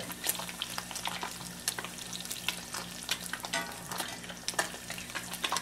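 Panfish fillets frying in hot oil in a cast-iron skillet: a steady sizzle with many small pops, while a metal slotted spatula turns the fillets over.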